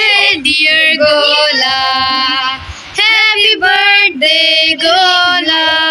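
Female voice singing a melody in long held notes, phrase after phrase with short breaks between them.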